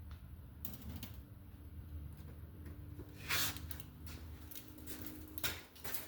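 Handling noises: a few short rustles and clicks, the loudest about three seconds in and again near the end, over a steady low hum.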